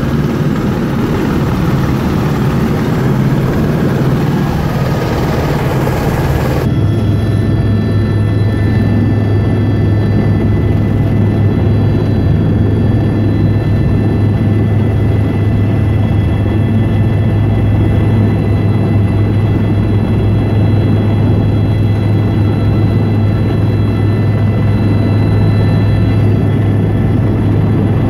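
Helicopter noise throughout. At first it is a broad, noisy running sound on the ground. About seven seconds in it switches abruptly to the steady, deep drone of a helicopter in flight, with fixed whining tones, heard from aboard.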